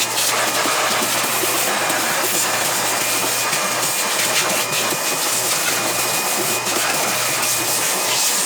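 Aerosol spray paint hissing steadily from the can in one long continuous spray, with a faint hum underneath.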